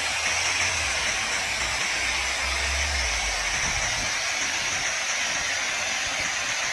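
Pressure washer spraying through a foam cannon: a steady hiss of spray.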